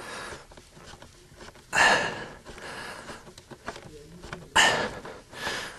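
Two heavy breaths, loud puffs of air about three seconds apart, with faint clicks and scrapes of a hand screwdriver turning a screw into a metal blank cover plate between them.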